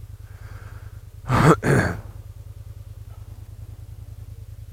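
Kymco AK550's parallel-twin engine idling with a low, steady, even pulse. About a second and a half in come two short, loud, breathy puffs close to the microphone.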